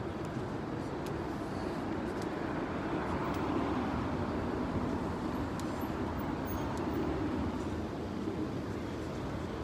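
City street traffic: a steady rush of engine and tyre noise from passing vehicles, swelling about three seconds in and again around seven seconds as vehicles go by.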